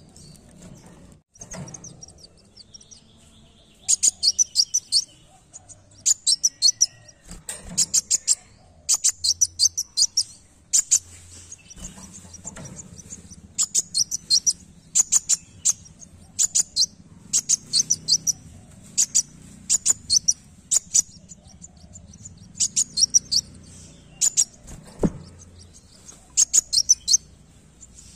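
Caged sunbird (kolibri wulung) singing: short bursts of rapid, very high-pitched notes, one burst every second or two.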